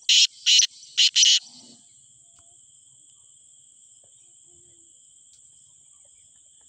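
Black francolin giving its evening call: four loud, harsh notes within the first second and a half, the last two close together. After that, only a faint, steady chirring of crickets.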